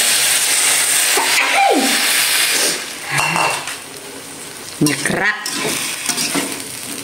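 Water poured into a hot oiled wok of stir-fried luffa, bean sprouts and tofu sizzles loudly, the sizzle falling away after about three seconds, while a metal spatula stirs and scrapes the pan. The water is added so the vegetables don't scorch.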